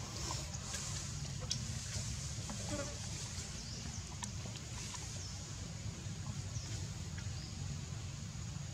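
Scattered short, high, falling chirps and squeaks from small animals, with a few clicks, over a steady low rumble.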